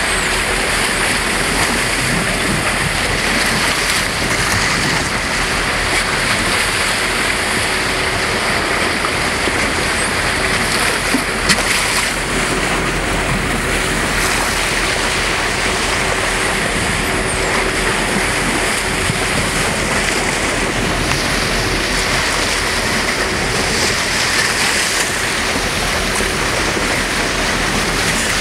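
Steady rush and wash of sea water along the bow of a moving boat, with wind noise on the microphone.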